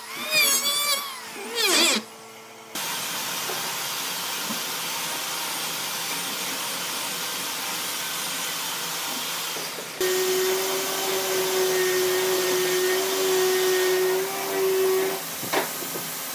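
An electric hand planer cuts briefly at the start, its pitch wavering. Then comes a steady machine whir, joined about ten seconds in by a steady hum.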